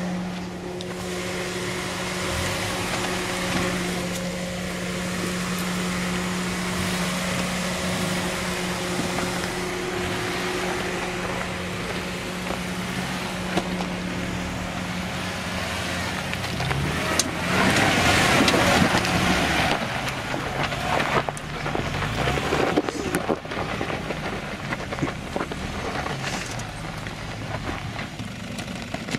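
An off-road 4x4's engine running steadily at one pitch while crawling over rocky ground, with a louder rush of noise for about two seconds past the middle and uneven, changing engine sound after that.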